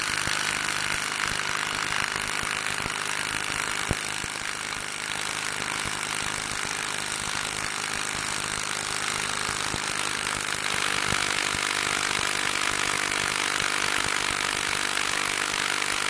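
DeWalt 20V MAX XR 3/8-inch brushless impact wrench hammering without a break as it drives a 3/8 by 12 inch bolt into a log. It gets a little louder from about ten seconds in, as the bolt goes deeper.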